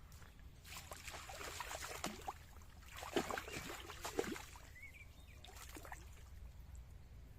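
Water splashing and dripping as a small carp is put back into the lake, in two spells with sharper splashes about three and four seconds in.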